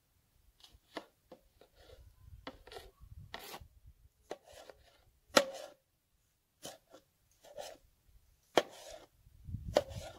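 Kitchen knife slicing tomatoes on a cutting board: irregular taps of the blade striking the board, with a few sharper knocks among them and light scraping between strokes.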